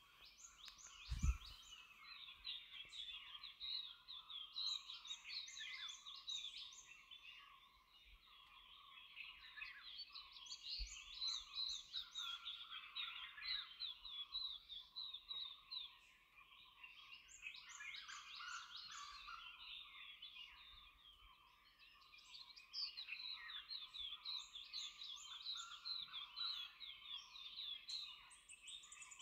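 Dense chorus of high, repeated chirping calls from forest animals, coming in waves, with a single low thump about a second in.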